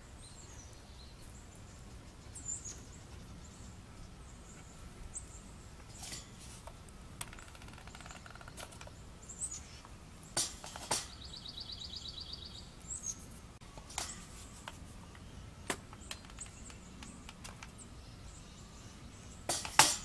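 Wild songbirds chirping now and then, short high notes with a rapid trill about halfway through. A few sharp clicks and light rustles of hands handling the work come in between, the loudest near the end.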